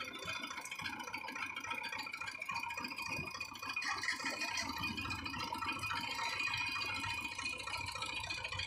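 A steady mechanical buzzing rattle from a sugarcane juice crusher's roller machine running.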